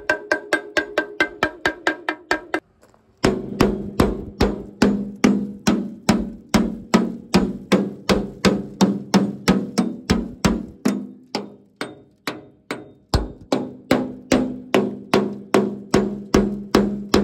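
Background music with a steady percussive beat of sharp, wood-block-like clicks over a low pitched note. It breaks off briefly just before three seconds in, then comes back at a slower pace, about three beats a second.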